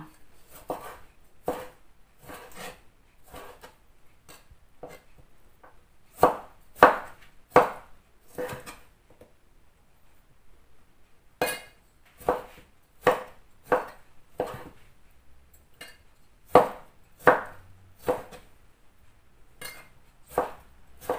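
Kitchen knife cutting tomatoes on a wooden cutting board: irregular sharp knocks of the blade striking the board, in groups, with a short pause about halfway through.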